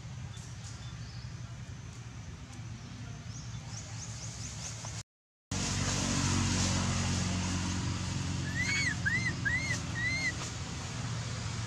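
An infant long-tailed macaque gives four short, arched, squeaky calls in quick succession near the end, over a steady low rumble. The rumble cuts out briefly about five seconds in.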